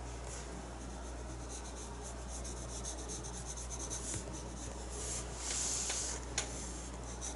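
Paintbrush stroking and dabbing acrylic paint onto the painting surface: faint scratchy rubbing strokes, with a louder brushing stroke about five and a half seconds in. A steady low hum runs underneath.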